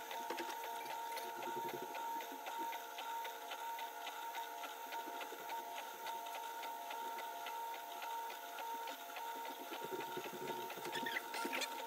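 Entina Tina2S desktop 3D printer printing: its stepper motors whine in steady tones that step up and down in pitch as the print head and bed change moves, with rapid fine ticking throughout. It is laying down the first layer of a print.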